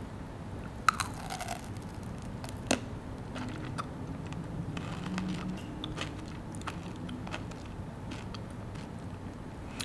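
Close-up chewing of a pistachio kunafa chocolate bar, the crunchy filling crackling between the teeth, with two sharper crunches about one second and three seconds in.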